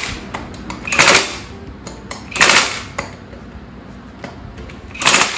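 Power tool running the wheel lug nuts tight on a lawn tractor in three short bursts, the first two about a second and a half apart and the third about two and a half seconds later, with light clicks of the tool and nuts between.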